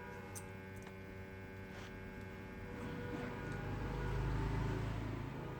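Steady electrical mains hum with several fixed tones, joined in the second half by a low rumble that swells and then eases, with a couple of faint clicks near the start.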